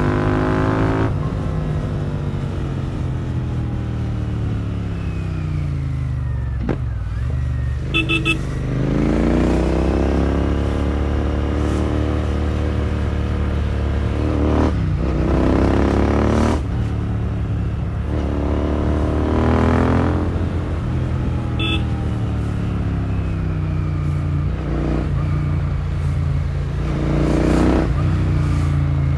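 Royal Enfield Continental GT650's 648 cc parallel-twin engine on the move through a Powerage short-cone aftermarket exhaust, revs rising again and again as it pulls through the gears and falling as the throttle is rolled off, with a deep drop in revs about six seconds in. Brief high beeps sound about eight seconds in and again near twenty-two seconds.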